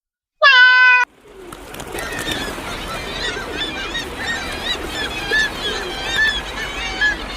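A flock of birds chirping and chattering, many short, quick calls overlapping, after a single short, even-pitched meow-like call right at the start.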